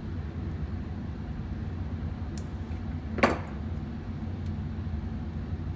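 Small clicks of hand work on a wire connector, with one sharp snap about three seconds in as pliers squeeze a T-tap connector shut, over a steady low hum.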